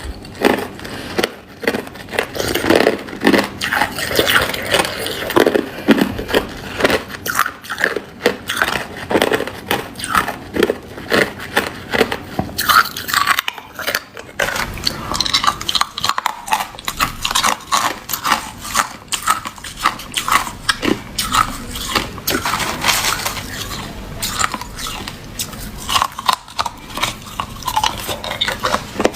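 Crushed clear ice being bitten and chewed close to the microphone: rapid, irregular crunches that continue without pause.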